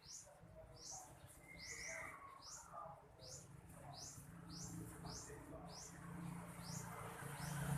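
Faint, steady series of short, high rising chirps repeated about twice a second: a bird calling over and over. A low hum builds toward the end.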